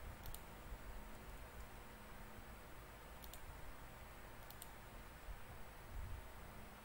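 Faint clicks from someone working a computer. There is a double click near the start, a single click about three seconds in and another double click about a second later, over a quiet room hiss, with a soft low bump near the end.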